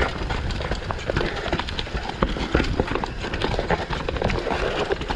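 Mountain bike riding down a rough bike-park trail: the tyres run over dirt and rocks, and the bike rattles and knocks irregularly over a steady low rumble.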